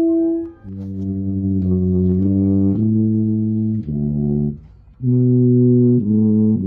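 A low brass instrument playing a slow series of separate low notes, a new note every half second to second, with a short break about four and a half seconds in. A higher held brass note fades out just before the low notes begin.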